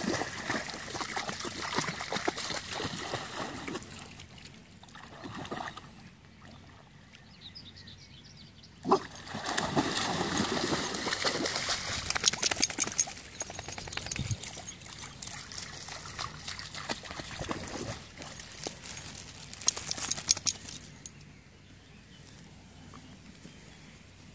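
Dogs splashing and wading through the shallows of a pond, the water sloshing and dripping in uneven bursts. A quieter spell comes before a single sharp knock about nine seconds in, after which the splashing picks up again, then dies down near the end.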